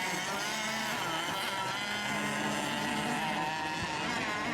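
A pack of radio-controlled racing boats running at speed just after the start, their small engines whining together in several overlapping pitches that rise and fall as the boats race the course.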